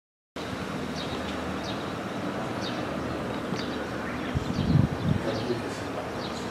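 Outdoor ambience: a steady background hiss with short, high bird chirps about once a second. Wind buffets the microphone a little past the middle. The sound begins after a brief moment of dead silence.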